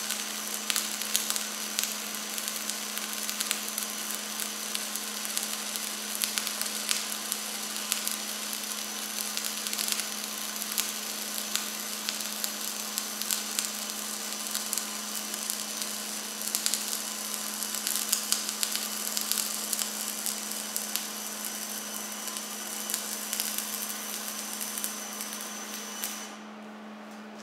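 MIG welding arc crackling and spattering steadily as a vertical-up weld is run on steel plate, then cutting off abruptly about a second before the end.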